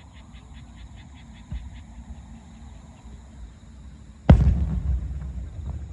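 Aerial firework shell bursting overhead: one sudden loud boom about four seconds in, followed by a low rumble that dies away over the next second and a half.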